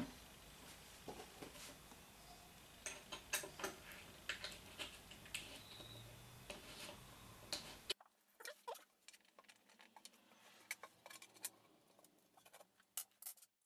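Faint, scattered small clicks and knocks of telescope base panels and screws being handled and fitted together by hand, over a light room hiss that drops away about eight seconds in.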